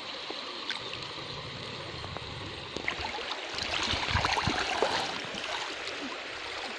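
Shallow river water sloshing and splashing as hands work a fish under the surface, getting louder and busier about three seconds in.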